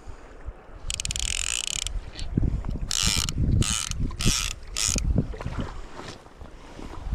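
Fly reel's click-and-pawl ratchet buzzing in five short runs, the first the longest, as line moves on the reel.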